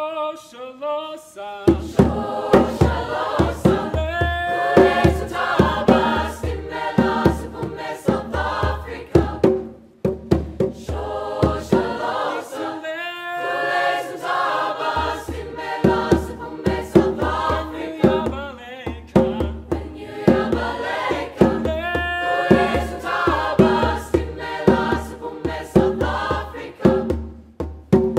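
Mixed choir singing, with a hand drum joining about two seconds in and beating a steady rhythm under the voices. The drum drops out for a couple of seconds about halfway through, then comes back in.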